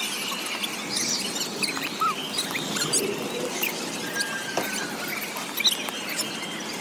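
Busy outdoor crowd ambience: a steady hiss of background noise dotted with many short, high-pitched squeaks and chirps.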